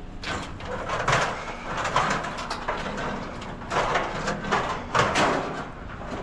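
Scrap being stomped on and crushed down underfoot: a series of sudden, noisy stomps, several in a few seconds.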